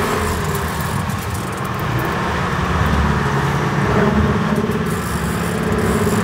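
Sportfishing boat's engine running steadily, a low drone with a rushing noise over it.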